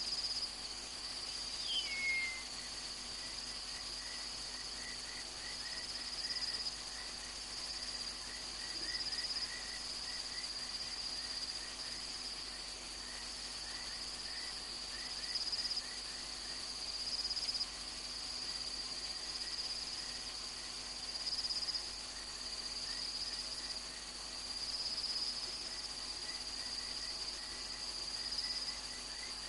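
Night insect chorus: a steady high-pitched trill that swells and fades every second or two. A brief falling whistle sounds about two seconds in, and a second, lower call of rapid ticks joins soon after and keeps going.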